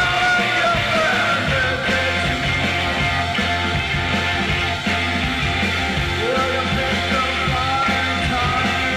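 A live rock band playing: electric keyboard, drums, electric guitar and bass, with a man singing lead over it.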